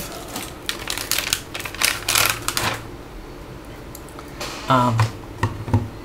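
Anti-static bag of a hard drive crinkling as it is opened, a quick run of sharp crackles that dies away about three seconds in. A brief hum of a voice follows, and then a few light knocks near the end.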